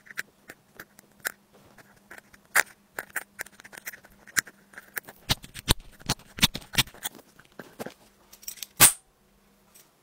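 A thin pick scraping and tapping inside an iPhone's charging port as packed lint is dug out: irregular sharp scratches and clicks, the loudest near the end, stopping about a second before the end. A faint steady hum runs underneath.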